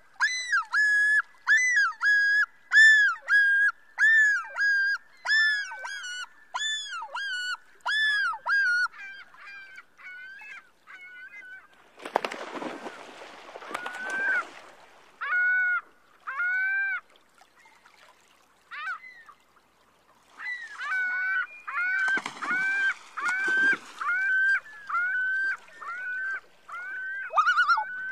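Common loon calling in a long run of repeated ringing phrases, about two a second. The run fades and pauses partway, then starts again. Two bursts of rushing noise break in, one midway and one later.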